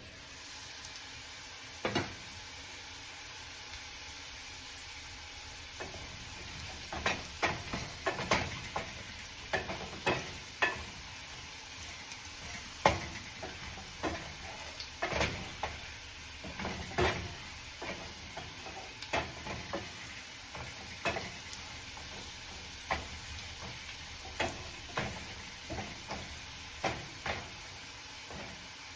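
Potatoes frying in a pan with a steady sizzle, while a utensil clacks and scrapes against the pan over and over as they are stirred and turned, the knocks coming thick from about seven seconds in.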